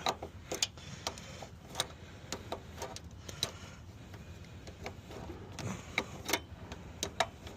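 Scattered light metallic clicks and taps of hand tools and fittings being handled on the engine, irregular, a few each second, over a faint low hum.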